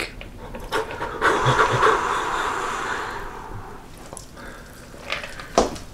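Fingers crumbling a moist, unpressed block of tofu right at the microphone: a soft, crackly squishing that swells about a second in and fades away after a few seconds.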